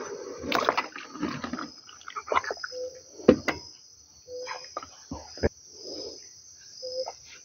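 Water sloshing around a freshly painted and caulked wooden canoe as it is handled in shallow water, with a few sharp knocks against the wooden hull. A short low note recurs every couple of seconds in the background.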